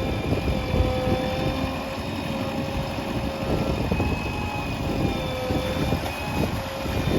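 JCB 3DX backhoe loader's diesel engine running steadily while it digs, a low rumble with a steady whine over it.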